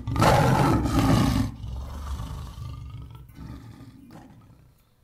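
Tiger roar, a sound effect laid over the shot of a ceramic tiger figurine. It is loud for about the first second and a half, then trails off slowly and dies away near the end.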